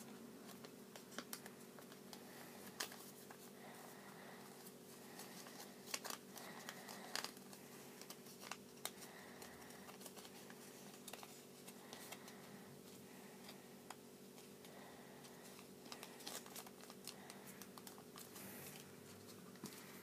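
Faint rustling and crinkling of a sheet of origami paper being folded and creased by hand, with scattered soft taps over a steady low hum.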